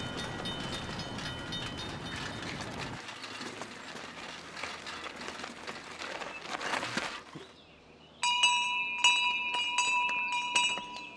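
Wheels rattling over cobblestones, then, after a short hush, a hand bell rung repeatedly from about eight seconds in, roughly three clangs a second, each one ringing on.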